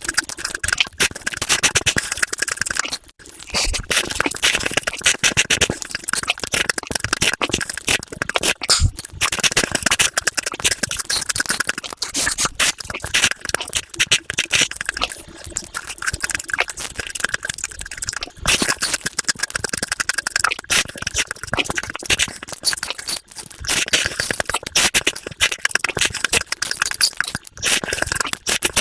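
Close-miked eating sounds played at five times speed: a fast, dense run of chewing and mouth clicks with no pause.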